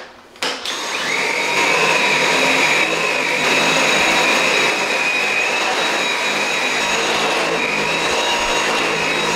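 Cordless stick vacuum cleaner running over a shag rug. It starts about half a second in, its high whine rising briefly and then holding steady.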